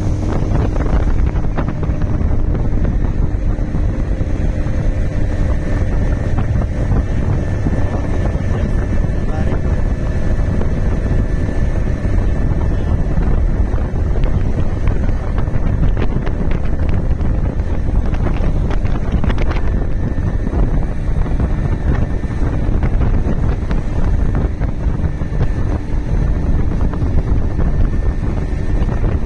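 Motorboat under way at speed: a steady engine hum beneath loud wind buffeting the microphone and water rushing past the hull.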